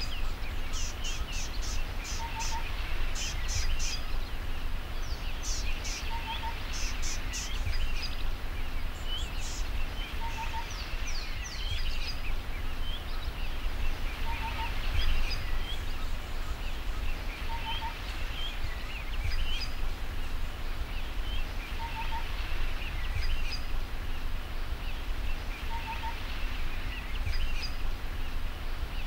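Birds chirping and calling, with a soft two-note call repeating about every two seconds, over a steady low rumble.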